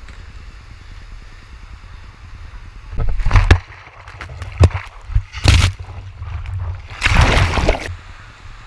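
Water sloshing and splashing over a skimboard-mounted action camera in the shallow surf, in four loud bursts from about three seconds in, over a steady low rumble of wind on the microphone.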